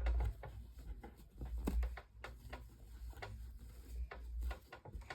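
Irregular light clicks and taps of a plastic fan-blade hub being handled and worked with a screwdriver and wipe, over a low handling rumble.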